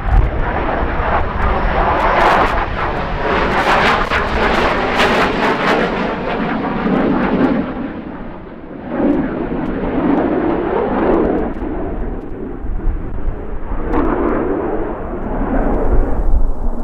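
Boeing EA-18G Growler's twin General Electric F414 turbofans on landing approach as the jet passes low overhead, loud, with a crackling rasp for the first few seconds. The noise fades a little past the middle, then swells again as a second Growler comes in.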